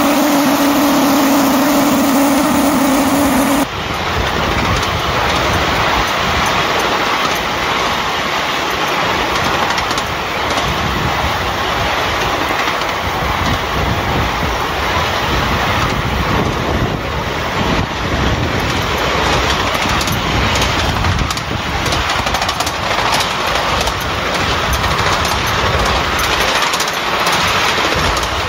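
A 5-inch gauge miniature steam locomotive running along the track, heard from close behind it, with a continuous rush of running noise from the moving engine and its wheels on the rails. For the first three and a half seconds a strong steady tone sounds over it, then cuts off suddenly.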